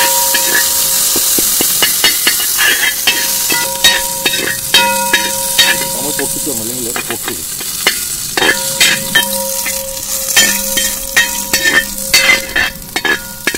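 Dried red chillies sizzling as they fry in hot coconut oil in a wide aluminium uruli, while a perforated steel skimmer stirs them and clicks and scrapes against the pan. The chillies are being roasted in the oil.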